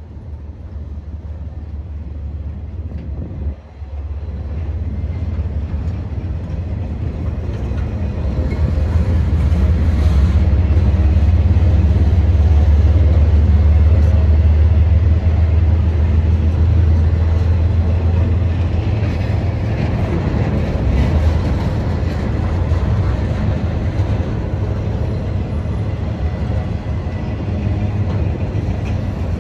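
Diesel locomotive of a slow-moving CSX rail train running past with a deep, steady engine rumble. It builds over the first several seconds, is loudest near the middle, then eases slightly.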